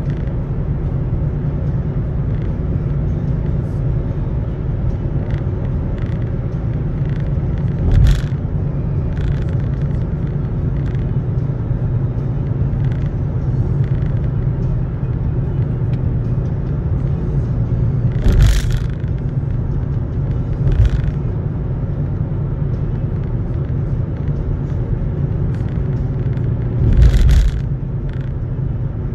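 Steady low road and engine rumble heard inside a moving car's cabin, with four short thumps, the loudest about 18 seconds in and near the end.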